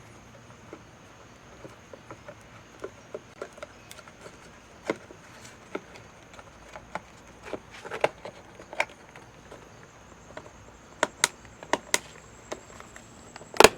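Irregular light clicks, taps and small knocks of hands handling tools and small parts, growing sharper toward the end with one louder knock just before it ends, over a faint steady high-pitched tone.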